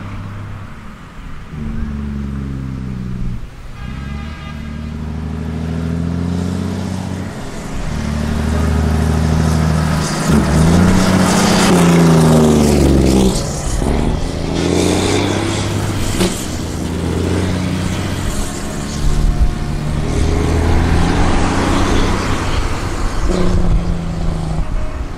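Volvo FH4 510 truck with an open, straight-piped exhaust accelerating past. Its 13-litre straight-six diesel climbs in pitch and drops back several times as it shifts through the gears. It is loudest as the truck passes about halfway through, then fades as it drives away.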